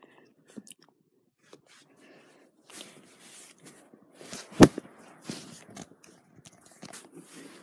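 Rustling and handling noises as plush toys are moved about, after a near-quiet start, with one sharp thump a little past halfway.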